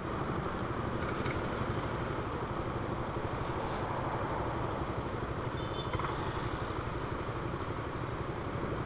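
Motorcycle engines idling at a stop, a steady low rumble with passing traffic around.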